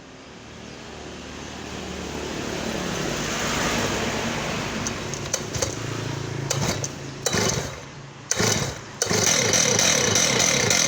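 Stihl MS880 two-stroke chainsaw starting: a few short bursts, then about nine seconds in the engine catches and runs steadily. The first seconds hold a rising rush of noise.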